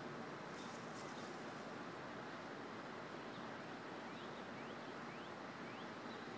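Steady outdoor background hiss, with a brief faint rustle about a second in and four faint, short rising chirps about two-thirds of the way through.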